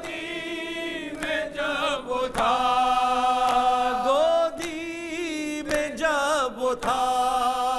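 A man's voice reciting an Urdu noha (mourning lament) into a microphone, unaccompanied, drawing out long wavering notes between lines of verse.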